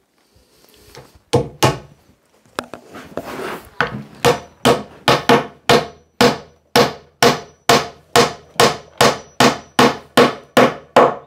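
Hammer knocking a wooden dowel into a drilled hole in a timber newel post, driving it through the joint's tenon to pin and pull the joint tight. After a couple of single blows, a steady run of about twenty sharp knocks, roughly three a second.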